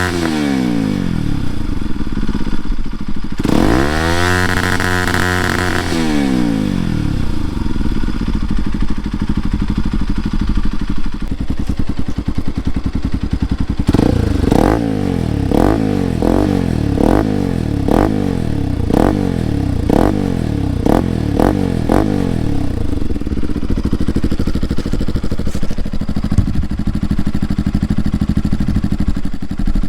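Bajaj Pulsar NS200 single-cylinder engine through an Akrapovic exhaust. It is revved up once and allowed to fall back to idle. After a stretch of steady idling it gets a quick string of about ten short throttle blips, then settles back to idle.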